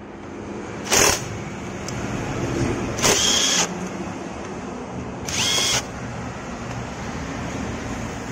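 A power driver with a socket runs in three short bursts, about a second in, at about three seconds and at about five and a half seconds, with a whine in the two longer bursts, undoing the mounting bolts of a motorcycle's front disc-brake caliper.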